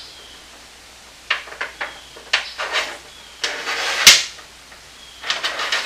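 Clicks, knocks and a scrape of a bed-cover mounting bracket being fitted onto a pickup's bed rail by hand, with the loudest sharp click about four seconds in.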